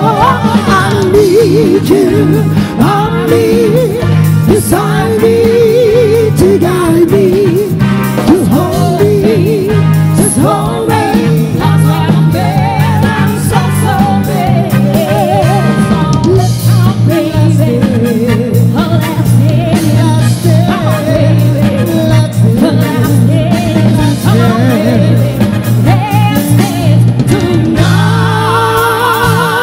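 Live band playing a pop song: a female lead vocal over amplified electric guitar, bass, keyboard and drums.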